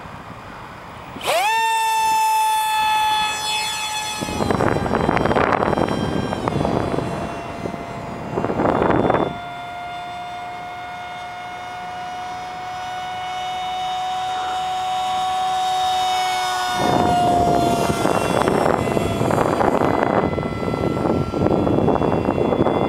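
Radio-controlled model jet's ducted fans spooling up sharply about a second in to a high steady whine, then whining on as the jet takes off and flies, the pitch dropping slightly a few seconds later. Bursts of rushing noise come and go over the whine.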